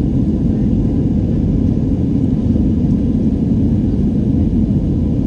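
Steady low rumble of a jet airliner in flight: engine and airflow noise heard from inside the passenger cabin.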